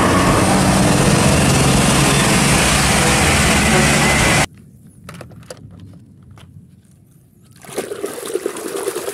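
Isuzu FTR diesel car-carrier truck driving on the road, loud steady engine and road noise that cuts off abruptly about four and a half seconds in. After a few light knocks, water sloshes and splashes in a plastic basin as muddy toy vehicles are stirred and washed near the end.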